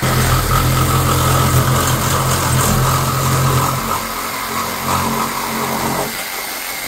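Compact cordless reciprocating saw running, its blade sawing through a plastic pipe clamped in a vise. The motor runs steadily, gets a little quieter about four seconds in, and cuts off about six seconds in.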